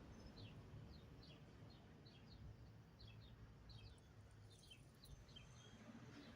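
Faint bird chirping: short, high, downward-slurred notes, two or three a second, over a low steady background hum.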